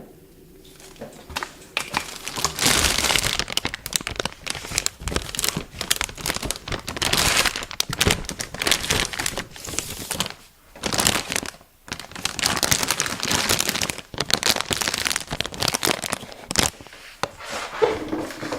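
Packaging being crinkled and rustled: plastic or paper wrapping crumpled and torn, in long irregular crackling spells with two short pauses in the middle.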